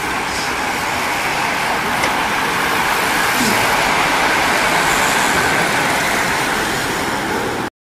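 A steady rushing hiss from a large bunch of racing bicycles riding past on the road, swelling as the pack goes by and cutting off abruptly near the end.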